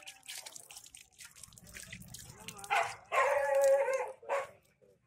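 A dog barking: a short bark a little after halfway, then one drawn-out pitched call lasting about a second, and another short one near the end.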